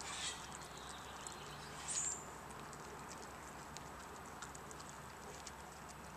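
A greyhound chewing raw chicken: faint scattered crunching and clicking of teeth, with one louder sharp click about two seconds in.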